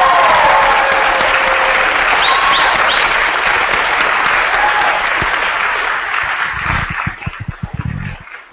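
Wedding guests applauding and cheering, with a few short whoops early on. The clapping thins out near the end, where a few low thumps come through.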